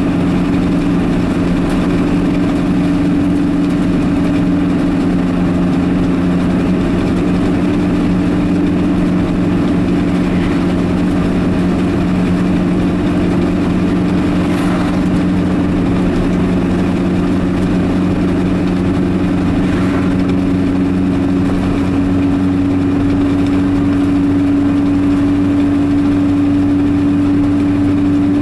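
Car engine and tyre noise heard from inside the cabin while cruising at steady speed, a constant low hum. An oncoming truck sweeps past about halfway through.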